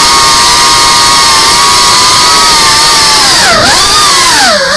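FPV quadcopter's brushless motors whining steadily in several close high tones. In the last second and a half the pitch dips and climbs sharply twice as the throttle is worked through the manoeuvre.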